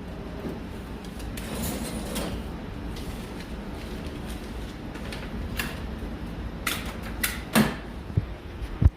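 Steady low background rumble, with a few sharp clicks and knocks in the last few seconds, the loudest just before the end.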